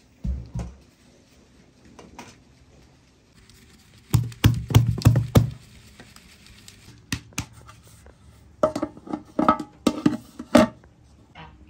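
Irregular knocks and thuds from hand work in a small room: one thump at the start, a dense run of heavy knocks about four seconds in, and scattered sharper knocks in the second half.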